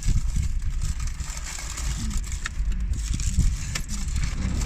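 Low, uneven rumble inside a car, with a few faint clicks and rustles.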